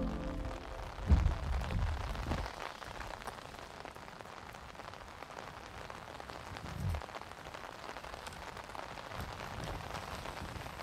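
Rain pattering on the fabric of a small tent, heard from inside. Two low rumbles stand out, one about a second in and a shorter one near seven seconds.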